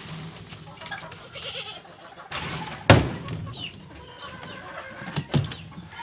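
Loose wood shavings poured from a galvanized metal scoop onto the ground, a soft rushing spill, with a second pour ending in a sharp knock about three seconds in and two lighter knocks near the end.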